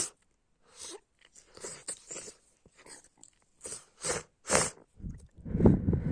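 A woman with a congested head cold making a run of short, breathy coughs and sniffles, about seven in a row, then a louder, longer coughing fit near the end.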